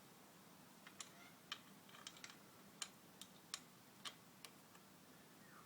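Faint, sharp clicks, about a dozen at uneven intervals, from hand tools and parts being handled while a BMX crank is put back together.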